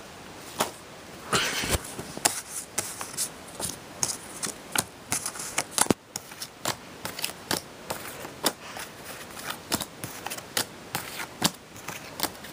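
A small hand of playing cards being shuffled and handled on a carpet: a run of quick, irregular card slaps and flicks, loudest about a second and a half in and again about six seconds in.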